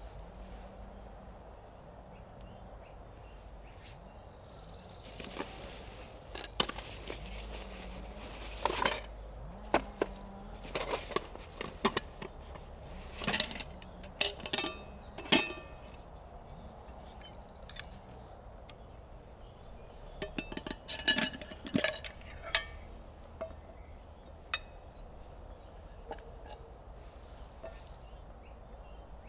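Irregular sharp clinks and knocks in two clusters, the first starting about five seconds in and the second around twenty seconds in, over a faint steady outdoor background.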